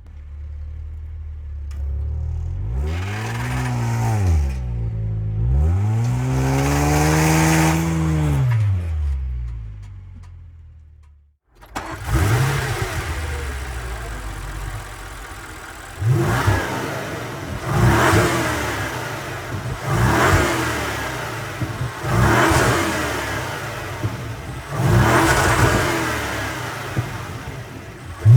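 A car engine idles and is revved twice, its pitch rising and falling smoothly each time, then fades out. After a short break, another car engine is blipped hard again and again: sharp revs that rise and drop about every two seconds.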